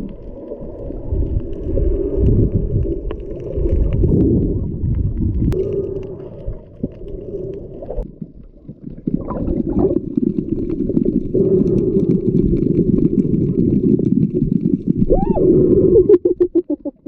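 Muffled underwater sound recorded by a camera held below the surface while snorkeling: low gurgling and sloshing of water, with the level dipping briefly a couple of times.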